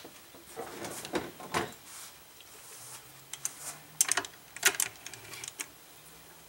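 Sharp metal clicks and clinks from a carbide-insert tool holder being handled and clamped on a mini lathe's tool post. They come in scattered groups, with a quick flurry about four seconds in.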